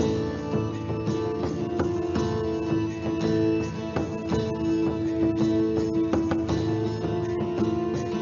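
Instrumental music: quickly plucked strings over long held notes.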